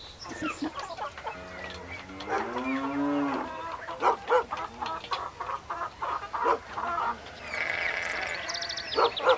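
Farmyard animals: a cow moos once, a long call that bends in pitch, followed by chickens clucking in quick runs of short calls, with higher chirping calls near the end.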